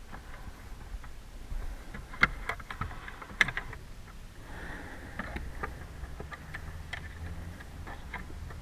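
Scattered clicks and knocks of a screwdriver and hands working on a plastic steering column cover, with two sharper clacks about two and three and a half seconds in.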